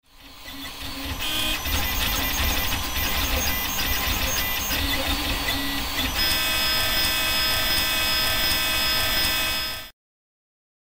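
RepRap 3D printer's stepper motors running through moves, singing a chord of steady tones that shifts in pitch each time a move changes. The sound fades in at the start and cuts off abruptly near the end.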